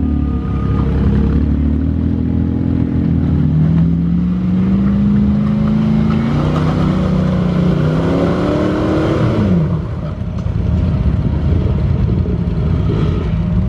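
Jeep engine running with its revs climbing slowly over several seconds, then dropping away about nine to ten seconds in.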